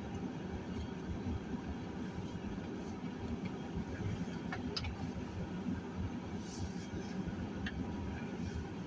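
Car running, heard from inside the cabin: a steady low engine and road noise, with a couple of faint clicks in the middle.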